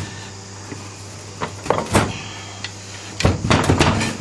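Metal clunks and scrapes from a partly dismantled air-cooled VW engine being shifted and tipped onto its side. There is a single sharp knock about two seconds in, then a quick run of knocks near the end, over a steady low hum.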